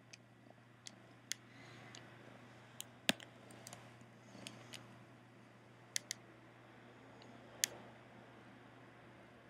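Irregular sharp clicks and taps, about ten in all, the loudest about three seconds in, over a faint steady hum: a kitten's fur and body brushing and bumping against the microphone.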